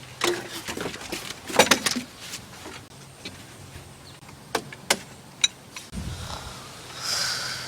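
Scattered sharp clicks and knocks with handling noise over a faint low hum, and a brief swelling hiss near the end.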